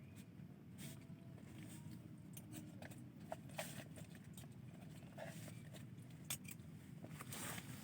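Someone eating: faint, scattered clicks and scrapes of a utensil, with chewing, over a low steady background hum.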